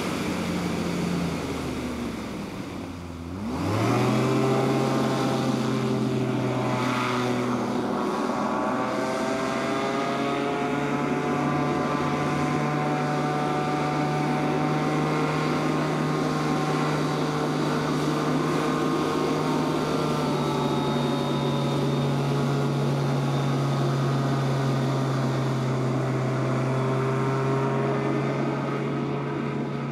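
Airslide H37 hovercraft's engine and ducted propeller running. About two to three seconds in, the pitch sinks low and then climbs sharply. From then on it holds a steady drone, with slow small shifts in pitch as the craft speeds across the water.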